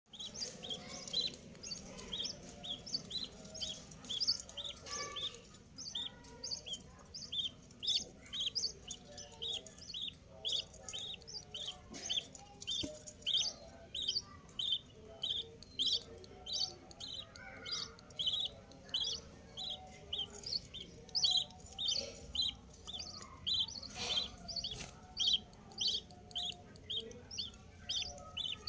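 Budgerigars chirping: a steady run of short, high chirps, about two to three a second, over a softer, lower chattering warble.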